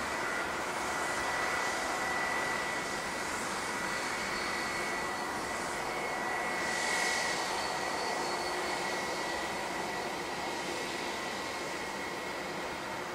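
Airbus A321 turbofan jet engines running, a steady rushing noise with a thin high whine over it, swelling briefly in hiss about halfway through.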